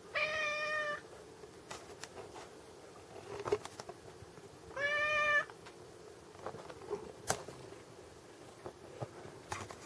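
Munchkin cat meowing twice: two level-pitched meows about five seconds apart, the first nearly a second long, the second shorter. A few faint clicks between them.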